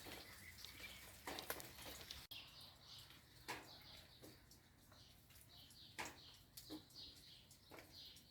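Faint scattered raindrops dripping and tapping on garden leaves, a few sharp drips at irregular intervals, with a small bird chirping repeatedly in the background from about a third of the way in.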